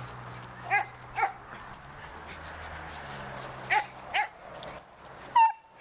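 A dog barking in two quick pairs of short, high barks, then one louder yelp near the end that drops in pitch and holds.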